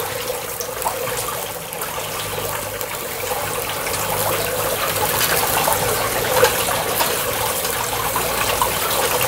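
Ribeye steaks sizzling on a wire grate over a very hot charcoal fire, a steady hiss full of small crackles and pops, with one sharper pop about six and a half seconds in.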